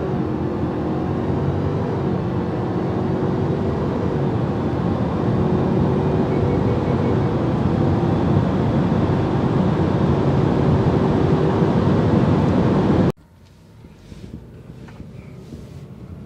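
2018 Subaru Forester XT's turbocharged 2.0-litre flat-four, on a Cobb Stage 1 tune, pulling hard from a standstill, heard inside the cabin; its pitch stays nearly level with slight rises as the CVT holds the revs up. About thirteen seconds in the sound cuts off abruptly to much quieter cabin noise.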